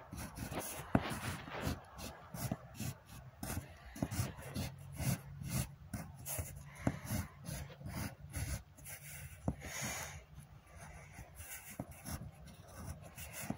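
Cloth rubbing and brushing against the microphone, making irregular scratchy rustles and small knocks.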